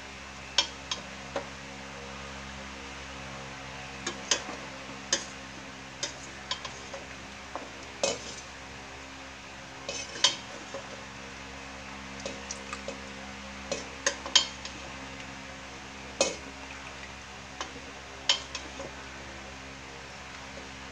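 A utensil clinking and scraping against a stainless steel pot and a ceramic bowl, in irregular sharp clinks, over a steady low hum.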